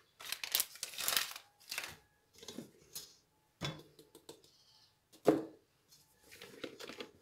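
Red plastic sieve being tapped to sift baking powder into a stainless steel bowl: a quick run of light taps and rattles, then scattered taps and one louder knock a little past five seconds in. Near the end, a wire whisk starts stirring in the bowl with a soft scraping rustle.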